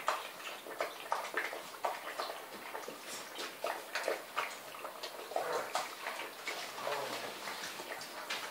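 Several Great Dane puppies lapping and chewing food from shared bowls: a busy run of irregular wet smacks and clicks.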